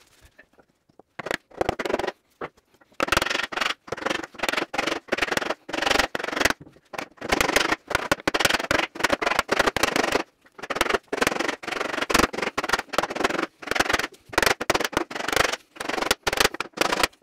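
Rapid, repeated knocks as a tight-fitting blackboard panel is tapped down into the groove of a wooden frame, with wood scraping against wood as it is forced in. The taps begin about a second in and keep coming almost without pause.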